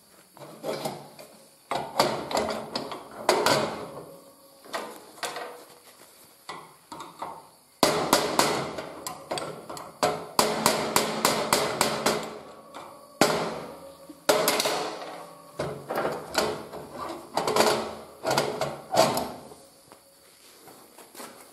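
Steel permanent-mold halves and freshly cast zinc parts clanking and knocking as the mold is opened and the castings are taken out. The sharp knocks come in irregular clusters, with a quick run of them about eight to ten seconds in.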